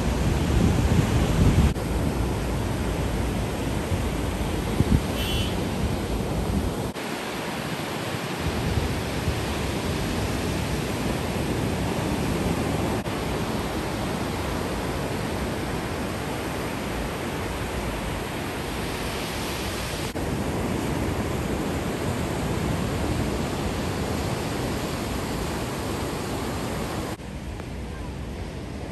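Storm surf and wind: a steady rush of breaking waves with wind rumbling on the microphone, shifting abruptly in level a few times.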